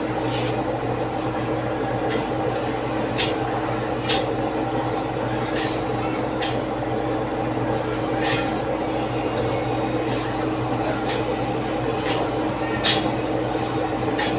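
Irregular sharp clicks and taps of a butcher's knife against a cutting board while cutting up chicken, over a steady machine hum.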